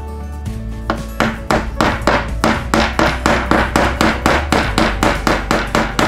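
Hammer tapping a carbon fiber rod into a cable-guide hole in a carbon bike frame: quick, even taps about four a second, starting about a second in. Background music plays underneath.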